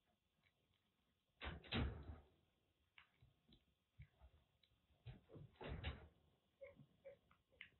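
Kitten licking a treat from a plastic spoon: faint, quick licking clicks, with two louder clusters of bumps about a second and a half in and again around five to six seconds.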